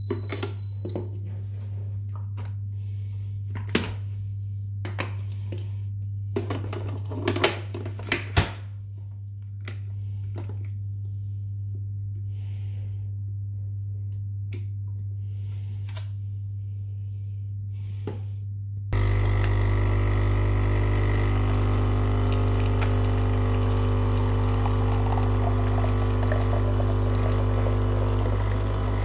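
Krups Nescafé Dolce Gusto capsule machine being loaded: a series of clicks and knocks as the capsule goes in and the lever is worked. About two-thirds of the way through, its pump starts suddenly with a loud, steady buzzing hum and keeps running while it dispenses a Nesquik chocolate drink into a glass.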